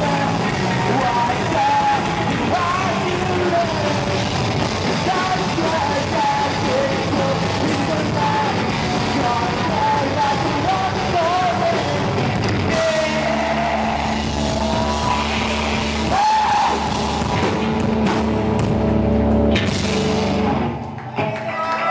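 Rock trio playing live: electric guitar, electric bass and drum kit. About thirteen seconds in the band moves to long held, ringing notes, and the song stops suddenly near the end.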